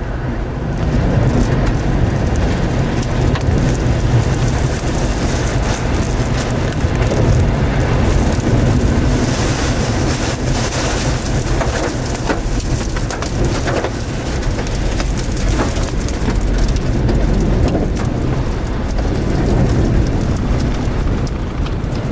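Heavy rain pelting down over a strong, steady low rumble of wind, in the thunderstorm around a tornado at close range.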